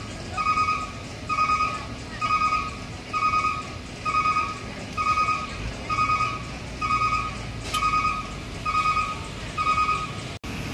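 Electronic warning beeper sounding a short, high beep at an even pace of about one a second, over a steady low rumble.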